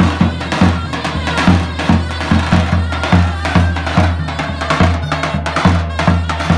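Davul, the large double-headed Turkish bass drum, beaten with a stick for a folk line dance, about two heavy beats a second with lighter strokes between, under a wavering folk melody.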